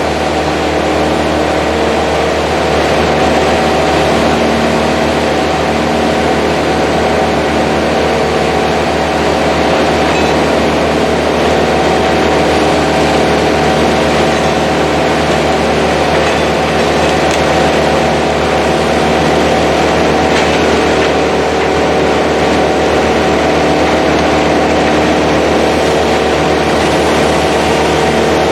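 A heavy engine running steadily at one constant speed.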